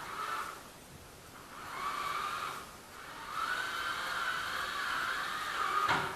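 Handheld power drill-driver whining in three runs, short, then longer, then about three seconds long, with a sharp knock near the end.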